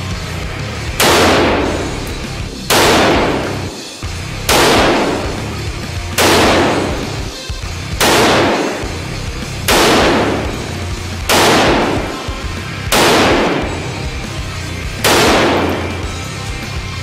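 AK-47 rifle (7.62×39 mm) fired semi-automatic, one shot at a time: nine sharp cracks about 1.7 seconds apart. Each rings out in the indoor range's echo and dies away within about a second.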